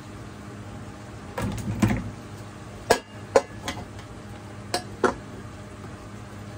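Kitchen clatter of dishes and utensils being handled: a short rattle about a second and a half in, then five sharp clicks and knocks, over a steady low hum.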